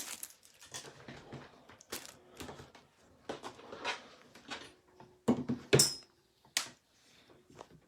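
Irregular small clicks, taps and rustles of objects handled on a desk, with a few sharper knocks about five to six and a half seconds in.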